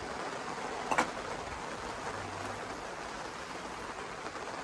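Steady background hiss with one light knock about a second in.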